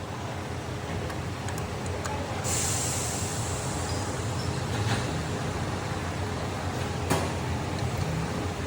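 Workshop noise during repair work: a steady low hum, a sudden hiss starting about two and a half seconds in, and a few sharp clicks.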